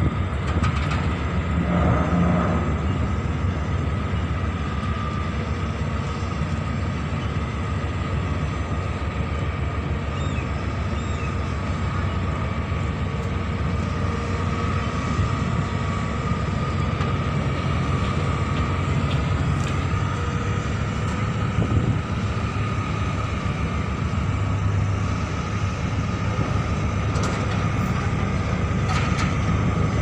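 An engine running steadily: a constant low drone with a steady whine above it.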